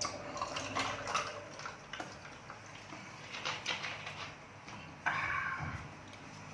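Utensils clinking and scraping against dishes at a meal, in scattered light clicks, with a louder scrape about five seconds in.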